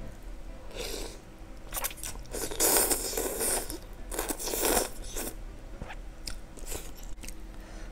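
A person slurping instant noodles in soup and chewing, in several separate slurps; the longest and loudest comes about two and a half to three and a half seconds in.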